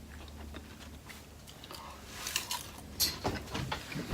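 Close-up eating sounds from a mukbang meal: quiet at first, then a run of short chewing clicks and mouth smacks from about halfway through.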